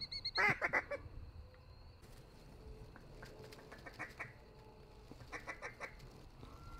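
Ducks quacking: a clear run of quick quacks about half a second in, then fainter runs of quacks around three to four seconds and again near five and a half seconds.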